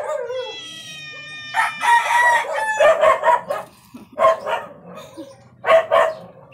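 A rooster crowing: one long held call, followed by several short loud calls.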